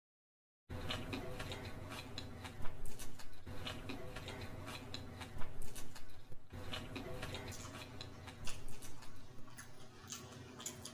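Close-miked chewing of paneer chowmein and fried rice: wet mouth and lip-smacking clicks, bunched in clusters about every three seconds. The sound starts after a silent first moment.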